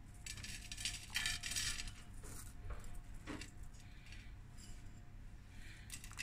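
Crispy fried onions sprinkled by hand onto a sandwich and its ceramic plate: faint, scattered little patters and clicks of the crisp pieces landing, in several short bursts.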